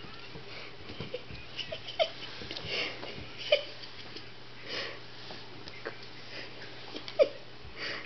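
A kitten's paws tapping and scuffing on a wooden tabletop as it plays, with three sharper taps standing out. Soft breathy sniffs come in between.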